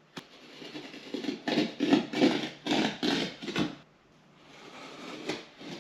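A blade working a sheet of drywall as a patch is marked and cut: a click, then a quick run of rasping strokes about three a second, easing off to a quieter scrape with one more stroke near the end.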